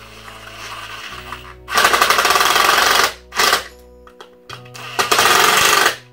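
Cordless impact driver driving screws into a drawer-front mounting bracket. The motor first spins lightly, then the tool hammers in three bursts: about a second long, a short one, then another of about a second.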